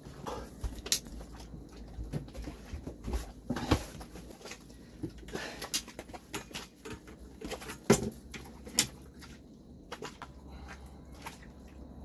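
Irregular knocks, taps and rustles of a freshly caught needlefish being handled and unhooked in a small boat, with a sharper knock about eight seconds in.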